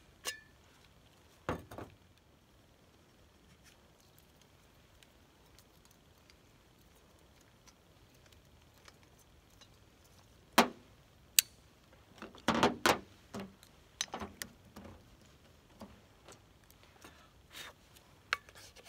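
Jetboil Flash stove parts being handled and nested for packing: the fuel canister, burner unit and insulated cup giving a few scattered clicks and knocks, with a short cluster of them about two-thirds of the way through, between long quiet stretches.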